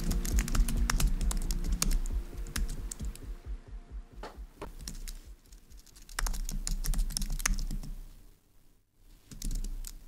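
Fast typing on a low-profile computer keyboard: quick runs of key clicks that thin out midway, pick up again, and pause briefly near the end, over soft background music.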